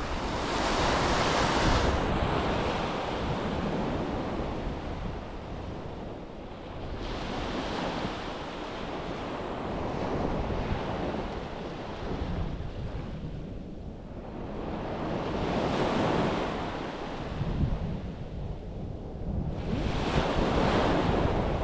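Sea waves breaking and washing up a beach, the surf swelling and fading every few seconds, with wind rumbling on the microphone.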